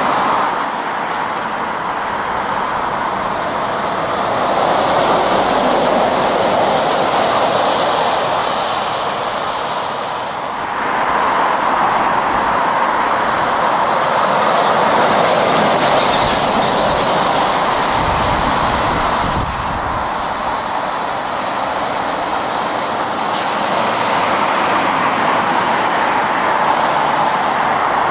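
Road traffic passing on wet tarmac: cars and lorries going round a roundabout with tyre hiss. The noise swells and eases as each vehicle passes.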